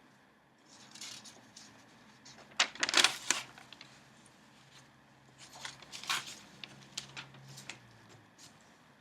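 Newspaper flier paper rustling and crinkling as it is handled, in several bursts, the loudest about three seconds in.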